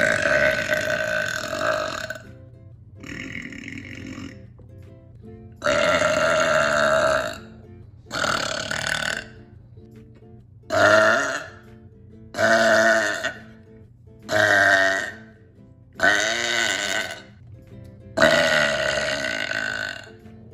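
A person burping loudly and at length: eight long, deep burps one after another, each lasting about one to two seconds, with short pauses between them.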